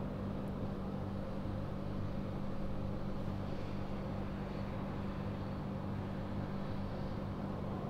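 Steady low mechanical hum with an even rumble beneath it, unchanging throughout, with no distinct events.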